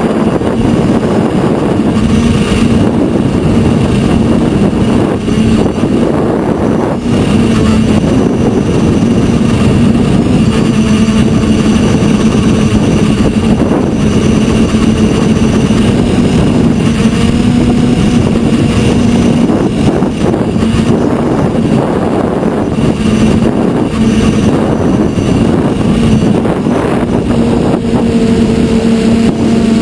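TBS Discovery quadcopter's electric motors and propellers buzzing steadily as heard from its onboard GoPro, under heavy wind and propeller-wash noise. The buzz wavers a little in pitch as the throttle changes.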